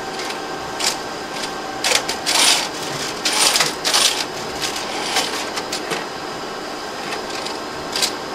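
Plasmon D Series library's robotic tray handler moving and gripping a tray: short motor runs and clicks over a steady fan hum. There are two longer, louder runs, about two and three and a half seconds in.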